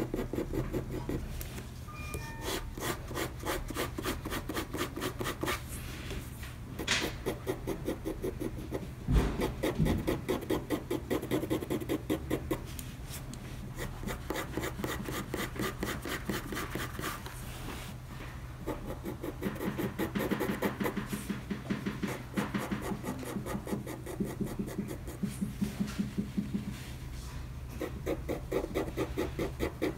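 Red colored pencil hatching on paper: a rapid, rhythmic zaz-zaz-zaz scratch of the lead rasping across the sheet, about four strokes a second.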